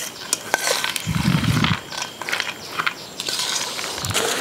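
Steel spoon stirring and scraping chopped vegetable salad in a stainless steel bowl: a run of irregular clicks and scrapes. About a second in there is a short low rumble.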